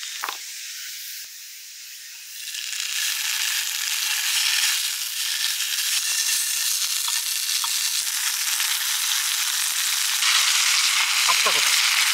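Food frying in a small nonstick pan on a portable butane canister stove, turned with chopsticks. A soft hiss at first, then a dense sizzle starts about two and a half seconds in and gets louder near the end.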